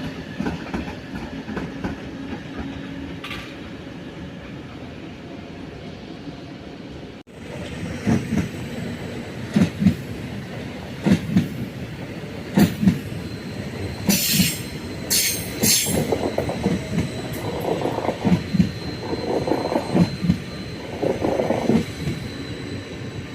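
A train running on rails, with a steady rumble at first. After a cut, the wheels clatter rhythmically over rail joints and points, and a few short high-pitched wheel squeals come about midway.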